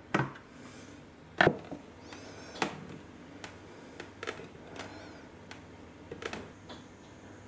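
Irregular clicks and knocks of small metal clock parts and tools being handled on a workbench, the sharpest about a second and a half in. Two short high squeaky chirps come between the clicks.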